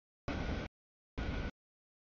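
Freight train rolling through a grade crossing: an even rumble of wheels on rail, heard as two short chunks of about half a second each, cut off abruptly by complete dropouts between them.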